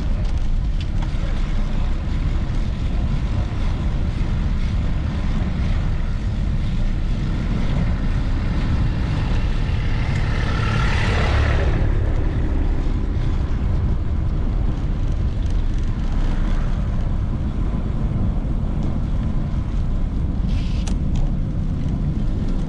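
Steady low wind rumble on the microphone of a moving bicycle, with street traffic around. A vehicle swells past about halfway through, the loudest moment.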